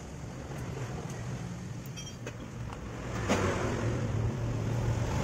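A vehicle engine runs steadily in the background, its hum and noise growing louder about three seconds in. A few faint clicks come as bolts are set into a motorcycle engine's side cover by hand.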